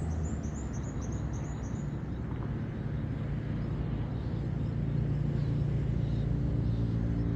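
A vehicle engine running steadily with a low hum, a little louder near the end. Over it, in the first two seconds, a bird gives a quick run of about ten high chirps, each dropping in pitch.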